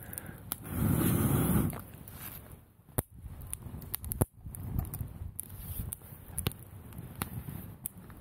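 Wood campfire crackling, with sharp pops and snaps scattered irregularly throughout. A low rushing gust swells briefly about a second in.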